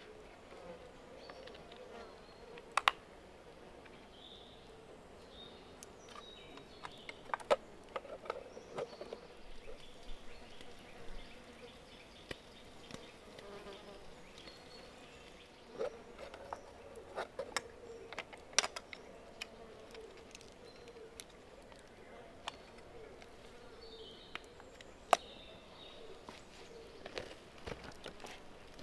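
A flying insect buzzing close by, its drone wavering in pitch as it moves, with scattered sharp clicks and ticks over it.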